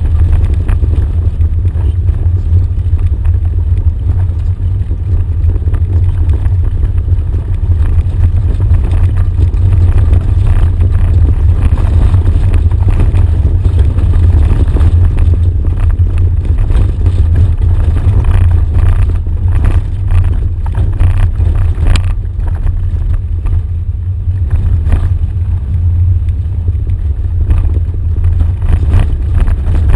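Off-road vehicle driving along a rough dirt track: a steady, loud low rumble of engine and tyres, with scattered knocks and rattles as it goes over bumps.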